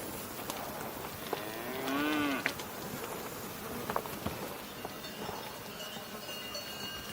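A cow moos once, a short call that rises and falls in pitch about two seconds in, among scattered light clicks. Faint high steady tones come in near the end.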